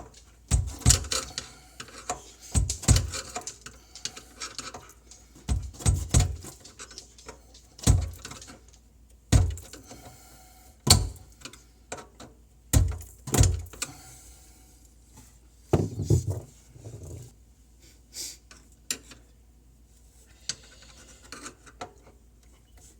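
Irregular series of sharp metallic knocks as the old garbage disposal is banged on its sink mount to knock it loose, a strike every second or so, thinning out in the second half.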